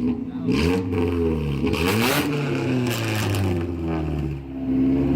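Mazda Miata four-cylinder engine idling, blipped up in revs twice and settling back to a steady idle. The engine has just been run through a Seafoam cleaning, and the owner says it is still idling weird.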